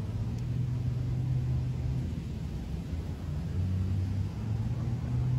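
A low, steady rumble with a droning hum underneath, whose pitch steps down a little about three seconds in.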